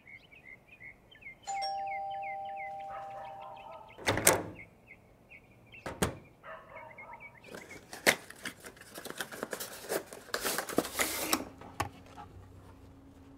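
Birds chirp softly, then a two-note doorbell chime rings out. A heavy thud and a sharp knock follow, then several seconds of cardboard crackling and rustling as a box's flaps are pulled open.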